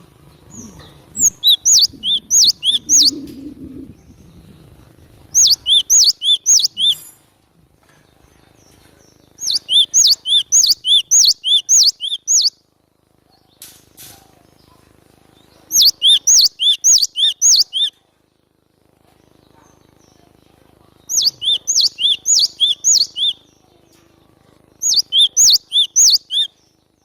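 Glatik batu (cinereous tit) singing in loud bouts of fast, repeated high two-part notes, about four or five a second, six bouts with short pauses between them.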